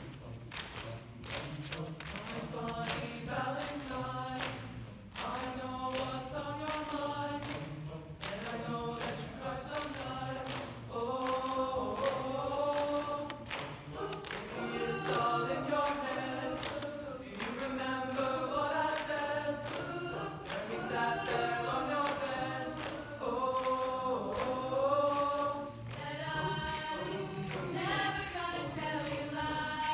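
Mixed-voice a cappella choir singing sustained chords in harmony, over a steady run of sharp clicks that keeps the beat.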